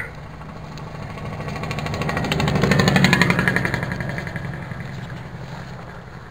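Semi truck passing on the road, slowing with a rapid pulsing engine-brake rattle. It swells to a peak about three seconds in, drops slightly in pitch and fades away.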